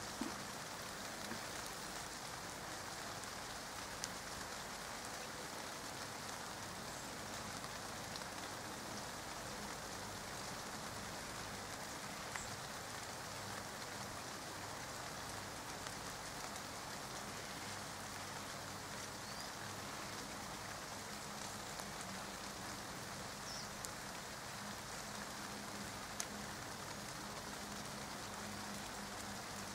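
Light rain falling on leaves and the ground: a steady patter, with a few louder single drops ticking now and then.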